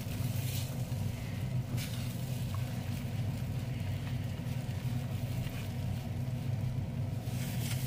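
A silicone spatula stirs scrambled eggs in a nonstick skillet, making a few soft scrapes over a steady low hum.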